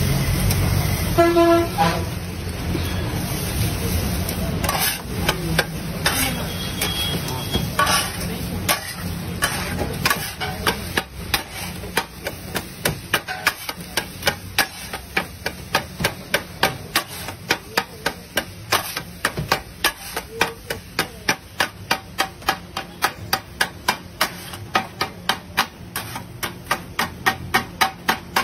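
Kothu parotta being chopped on a flat iron griddle with metal spatula blades: quick, rhythmic clanging strikes, about three a second, that settle into a steady beat after the first several seconds. A short tooting horn-like tone about a second in.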